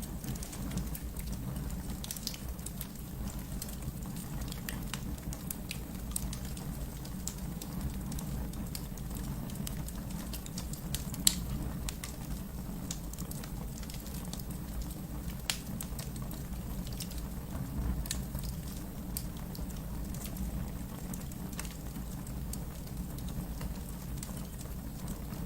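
Wood fire burning in a fireplace: a steady low rumble of flames with scattered crackles and pops, one louder pop about eleven seconds in.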